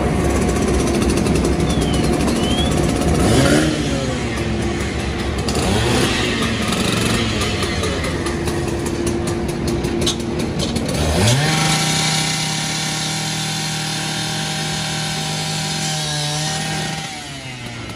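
Gas-powered rotary saw revving in short rises and falls, then, about eleven seconds in, spinning up fast to a steady full-speed run that falls off near the end, the kind of cut used to force entry.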